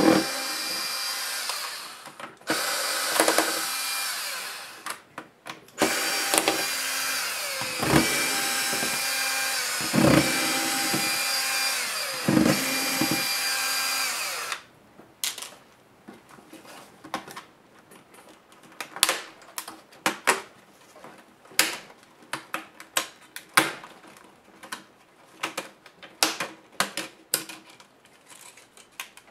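A cordless electric screwdriver runs in three bursts with a steady motor whine, backing screws out of a laptop's display lid. About fifteen seconds in the motor stops, and irregular sharp plastic clicks and snaps follow as the screen bezel is unclipped.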